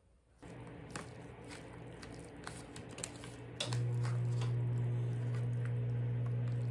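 A fork clicks and scrapes in a foil tray of oven-baked spaghetti, with small eating and handling noises, over a steady low electrical hum. The hum starts about half a second in, steps up louder about halfway through, and cuts off suddenly at the end.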